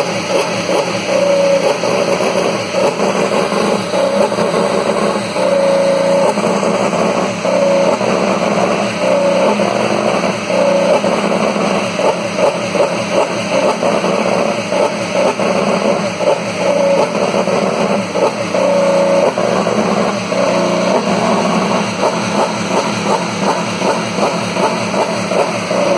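Honda IndyCar's 2.2-litre twin-turbo V6 running during a warm-up, revved in frequent short blips so that the engine note keeps rising and falling.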